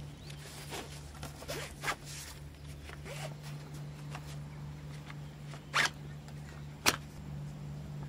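A zipper being pulled in several short rasping strokes, the two sharpest near the end, over a steady low hum.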